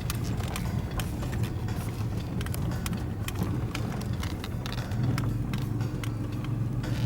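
Four-wheel drive running on a rough bush track, its engine steady underneath many short clicks and knocks. The engine grows louder about five seconds in.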